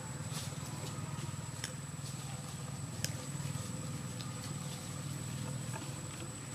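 Outdoor background: a steady low hum under a thin, steady high-pitched whine, with a few faint clicks.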